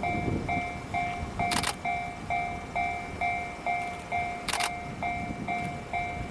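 Japanese level-crossing alarm ringing its warning, a two-tone electronic ding repeating about twice a second. Under it are low rail noise and a few short bursts of hiss about every three seconds.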